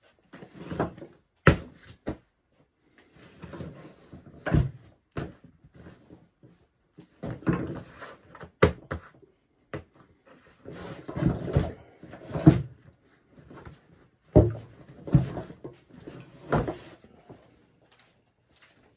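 A waxed-canvas and leather backpack being handled and turned over on a wooden surface: bursts of stiff canvas rustling every second or two, with several sharp knocks.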